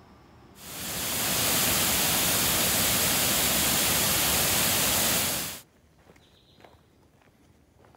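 Water rushing over a small mill-dam waterfall: a loud, steady rush that swells in about half a second in and cuts off suddenly after about five seconds. Faint footsteps on a dirt forest trail follow.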